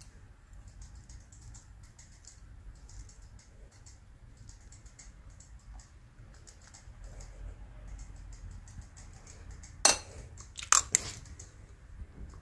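Crushed nuts sprinkled from a spoon onto a bowl of noodles and fried eggs, making faint scattered light ticks. About ten seconds in come three sharp clacks as chopsticks are set down across the ceramic bowl.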